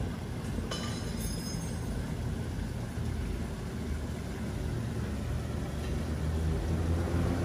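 Steady low rumble of a passing vehicle, growing louder toward the end, with a brief rustle about a second in.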